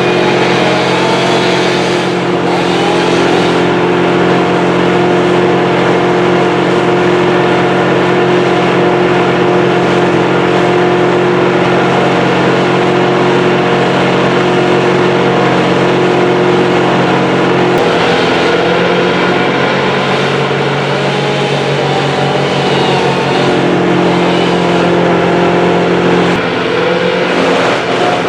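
A large engine running steadily and loudly, its note shifting about two-thirds of the way through and again near the end.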